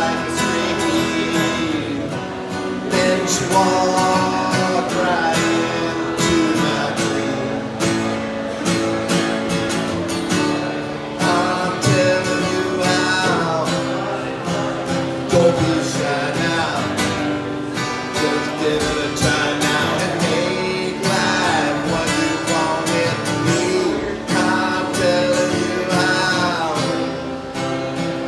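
Acoustic guitar played live, strummed and picked, with a man singing along into the microphone.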